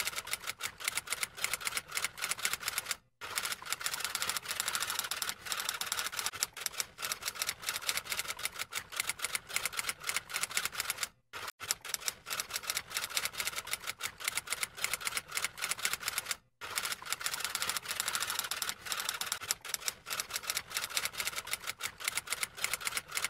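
Typewriter sound effect: a rapid, even run of keystroke clicks, broken by brief pauses about three, eleven and sixteen seconds in.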